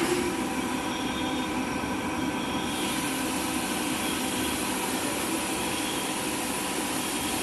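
Steady machinery noise: a continuous hum with several steady tones under a broad hiss, the hiss growing brighter about three seconds in.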